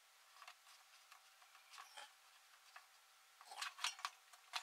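Faint clicks and rubbing from fingers handling the plastic wire-feed mechanism of a Parkside flux-core wire welder, with a short cluster of louder clicks and scrapes near the end.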